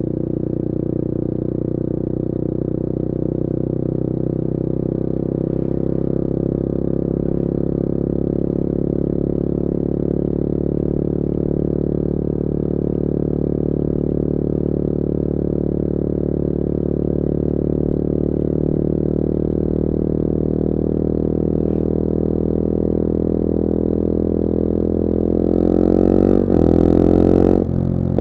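Bullit Hero 250's CF Moto 250cc four-stroke engine running under way at steady revs. The revs climb about 25 seconds in, louder as it accelerates, then drop suddenly near the end.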